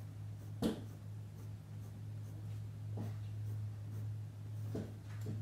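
Pencil scratching on paper in short hatching strokes, with a sharper tick under a second in, over a steady low hum.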